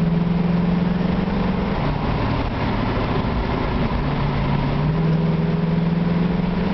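1970 Ford Mustang Mach 1's 351 V8 running under way, heard from inside the cabin along with road noise. The engine note eases off about two seconds in and picks back up about halfway through.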